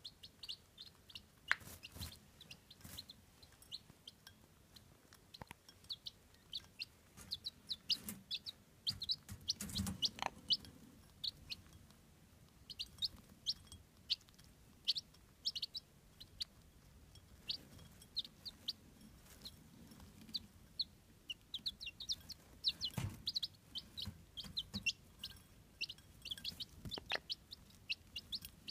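Chabo (Japanese bantam) chicks peeping in rapid short, high chirps as they feed, with a hen clucking softly now and then. A few sharp knocks stand out, the loudest about ten seconds in and another near twenty-three seconds.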